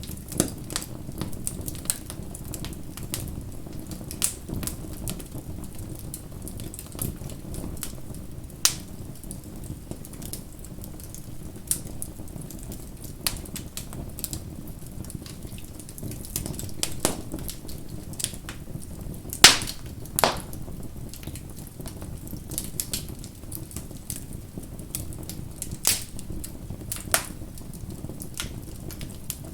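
Bonfire crackling: irregular sharp pops and snaps over a low, steady rumble of burning. The loudest pair of pops comes about two-thirds of the way through.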